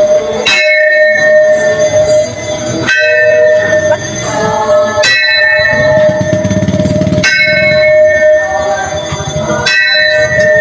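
A hanging metal pipe used as a bell, struck with a rod five times at an even pace of about one blow every two seconds. Each blow rings on in a sustained metallic tone until the next one.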